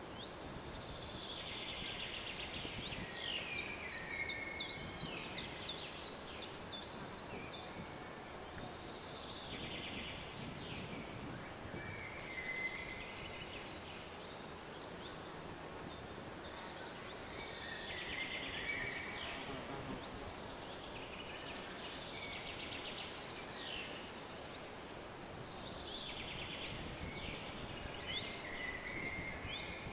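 A songbird singing short phrases of quick trills and falling chirps every several seconds, over a steady hiss of wind in the foliage.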